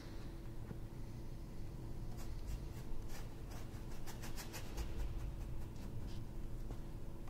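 Paintbrush stroking and dabbing on a canvas: a quick run of short scratchy strokes from about two seconds in until about five, with one more a second later, over a steady low hum.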